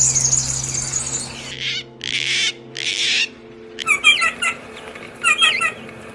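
Songbird vocalising: a fast, high chattering trill, then two harsh rasping calls, then short bursts of quick, clipped repeated notes.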